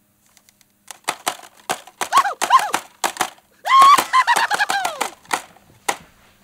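A run of sharp clicks mixed with high, squeaky, voice-like babbling that rises and falls in pitch: a comic puppet voice making nonsense sounds.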